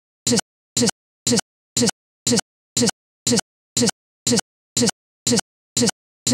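A digital recording glitch: one short fragment of sound, each lasting a fraction of a second, repeats identically about twice a second with dead silence between, as the stuck recording loops.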